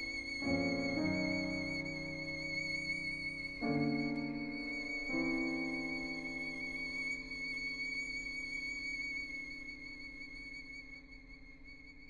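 Violin holding one long high note with vibrato over quiet piano chords, which change a few times in the first five seconds and then ring on. The sound fades steadily toward silence as the piece closes.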